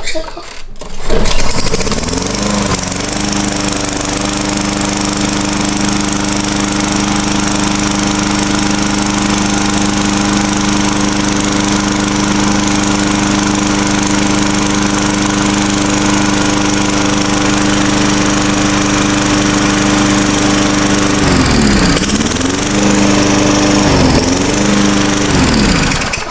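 A 4 hp Tecumseh push-mower engine cold-starting on a pull of the recoil starter, catching about a second in and then running loud and steady. Near the end its speed dips and recovers a few times, and then it cuts off suddenly.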